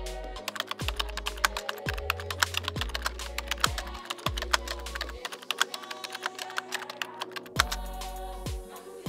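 Rapid computer-keyboard typing sound effect, many clicks a second, over background music with low bass notes; the typing stops near the end while the music goes on.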